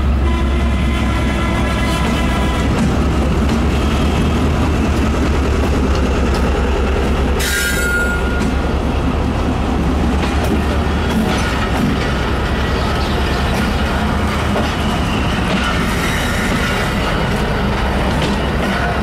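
A diesel-electric locomotive runs past close by, its engine note fading after the first few seconds. Passenger coaches then roll past with a steady rumble of wheels on the rails and a brief wheel squeal about a third of the way in.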